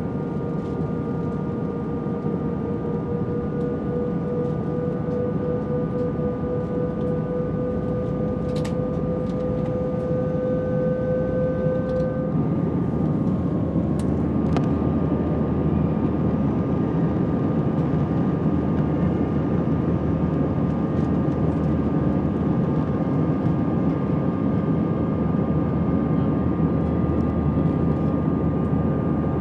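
Airbus A320 jet engines running, heard inside the passenger cabin as a steady roar with a whine. A tone slowly rises for about twelve seconds and then drops out, after which the roar gets a little louder. A few faint clicks can be heard.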